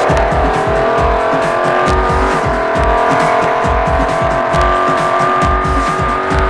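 Trophy truck engine running at high, steady revs, heard inside the cab; its pitch climbs a little in the first second and then holds. Irregular low thumps run underneath.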